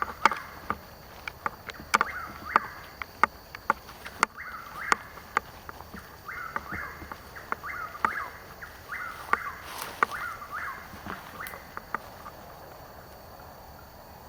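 A Chuck-will's-widow singing its repeated whistled phrase over and over, the phrases stopping about three-quarters of the way through. Sharp clicks and knocks come throughout and are louder than the song.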